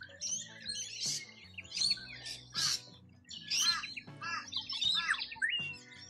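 Birds calling in quick succession, a busy mix of short chirps and squawky notes, over soft background music.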